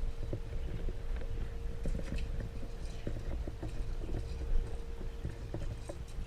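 Irregular knocks and taps of handling on a fishing boat, over a steady low rumble and a faint steady hum that stops near the end.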